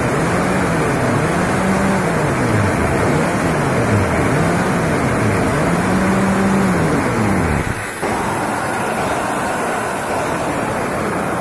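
Corded hammer drill with the hammer action on, boring a small anchor hole into a concrete wall: a loud, steady drilling noise whose motor pitch rises and falls several times, then runs steadier after a brief dip about eight seconds in.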